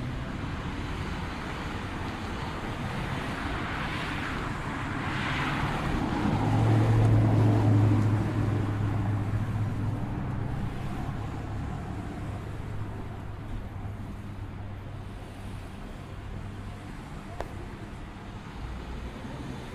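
Passing road traffic: a vehicle engine's low hum and tyre noise swell for a few seconds about six seconds in, then fade back into a steady background rush.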